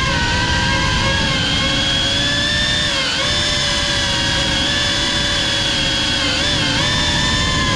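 High-pitched whine of an FPV cinewhoop's brushless motors and ducted propellers (GEPRC CineLog 35) in flight. The pitch holds steady, then dips and swoops about three seconds in and again near the end as the throttle changes, over a rushing rumble from prop wash and wind on the onboard camera's microphone.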